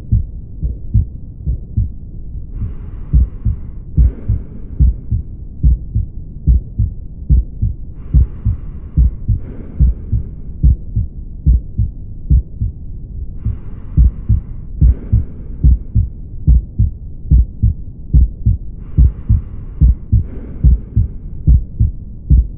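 Heart sounds heard through a stethoscope from a heart with aortic valve stenosis: a regular run of low heartbeats with a systolic ejection murmur between the beats, the sign of the narrowed aortic valve.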